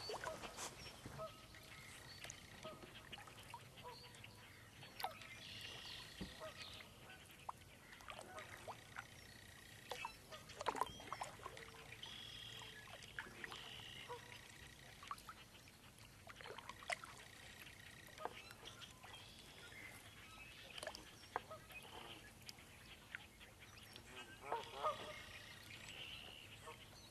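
Faint marsh ambience: scattered bird calls over the drips and light knocks of a kayak paddle moving through still water.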